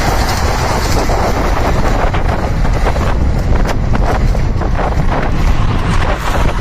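Wind buffeting the microphone, a steady loud rumble of noise with a few faint clicks through it.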